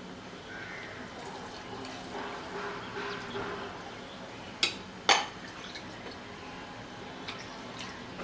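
Water being poured into a bowl of soaked rice and vegetables, splashing and trickling unevenly. Two sharp knocks follow, about four and a half and five seconds in.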